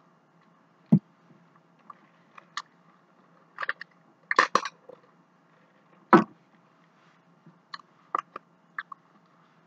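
Light eating-table sounds: a sharp knock about a second in, then a cluster of sipping and swallowing noises as soda is drunk through a straw from a paper cup, another sharp knock, and a few light clicks and taps as a cardboard pie box is handled near the end.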